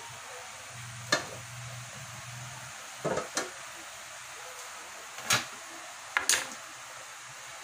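Steady hiss of a gas stove heating cooking oil in a wok, broken by several sharp knocks and clicks.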